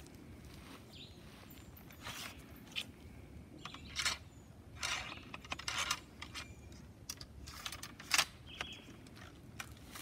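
Muzzle-loading musket being loaded: a series of short metallic scrapes and clinks as the ramrod is drawn from its pipes and worked down the barrel, the loudest about eight seconds in.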